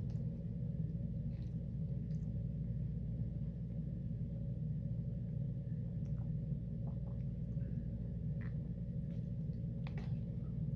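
Quiet eating: faint scattered clicks and scrapes of a plastic fork in a frozen-meal tray, with soft chewing, over a steady low hum.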